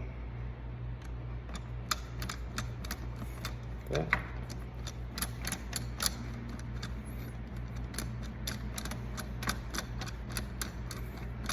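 Hand Phillips screwdriver driving a long mounting screw into a Schlage JD deadbolt, making a run of light, irregular clicks as the screw turns.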